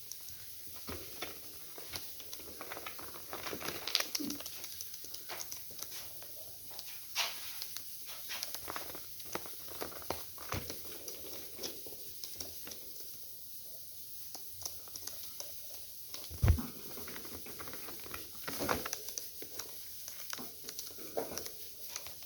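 Budgerigars moving about: scattered light clicks, taps and rustles, with one louder knock about sixteen seconds in.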